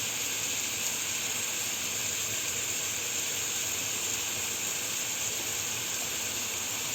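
Chicken frying in a pot with a steady, even sizzle.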